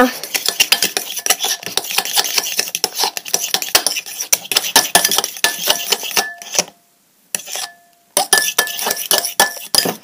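Mixing utensil stirring glue and shaving foam in a glass bowl: quick, continuous clinking and scraping against the glass, with a short pause about seven seconds in.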